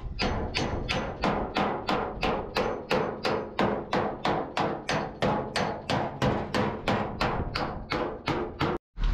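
Body hammer beating out dents in a Mercedes truck cab's sheet-metal side panel: steady blows about three a second, each with a short metallic ring, stopping abruptly near the end.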